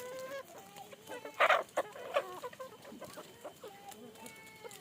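Several chickens clucking, with a loud squawk about a second and a half in and another shorter one just after two seconds.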